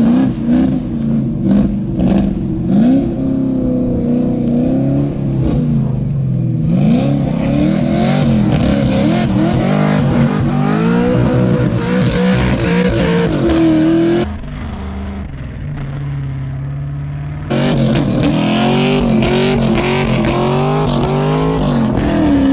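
V8 car engine revving hard, its pitch rising and falling again and again, as it is driven through snow. A little past the middle it turns quieter, duller and steadier for about three seconds, then the revving picks up again.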